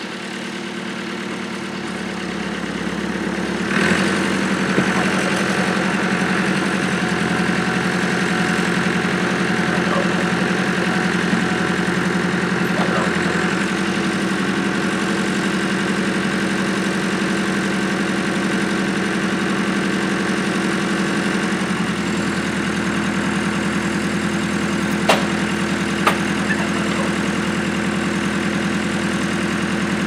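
Farm tractor engine running steadily as its front-end loader works. The engine builds up over the first few seconds, shifts its note about three-quarters of the way through, and two sharp knocks come near the end.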